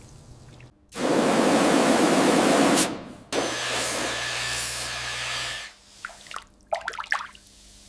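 Two bursts of pressurised water spray hitting rusted metal, each about two seconds long, the second with a steady low pump hum under it. A few short scratchy brush strokes follow near the end.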